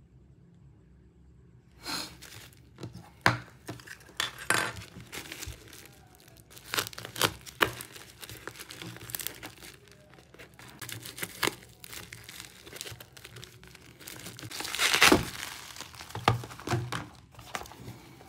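Plastic shipping wrap being torn open and crinkled by hand, in irregular crackling bursts starting about two seconds in, loudest near the end.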